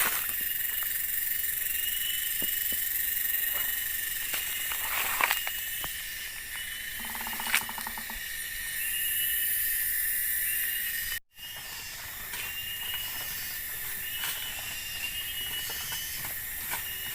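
Tropical forest ambience: a steady insect chorus of high buzzing with repeated short chirps, over a few scattered knocks and rustles. The sound cuts out for an instant about eleven seconds in.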